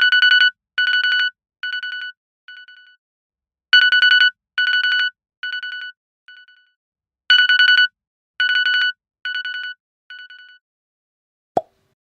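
iPhone-style telephone ringtone with a trilling, buzzy tone, ringing three times about three and a half seconds apart; each ring is followed by three fading echoes. A single short thump near the end.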